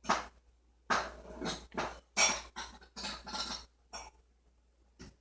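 A run of short knocks, clatters and rustles of household items being handled and set down, most of them bunched between about one and three and a half seconds in.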